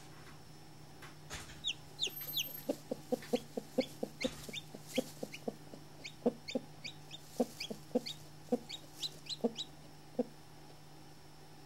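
Broody hen clucking in a run of short, low notes, about three a second, while her newly hatched chick peeps in short high notes; both stop a couple of seconds before the end.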